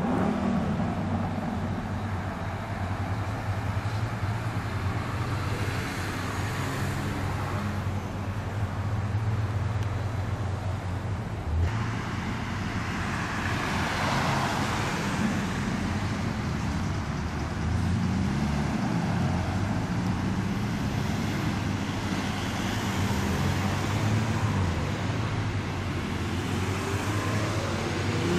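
Classic American car engines running. First an early-1950s Chevrolet, then, after a cut, a Cadillac Sedan De Ville's V8 driving past with road traffic: its sound swells as it passes, then its engine pitch rises and falls as it drives off.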